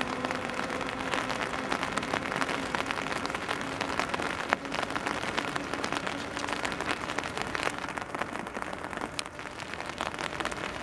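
Rain pattering steadily on a wet railway platform and track, with a faint steady hum underneath that fades away about eight seconds in. A single sharp tap stands out about four and a half seconds in.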